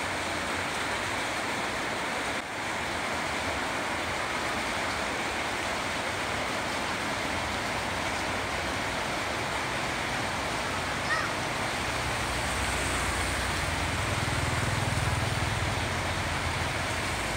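Steady watery hiss over a flooded street. Over the last few seconds a motor scooter comes closer through the floodwater, its engine hum rising above the hiss.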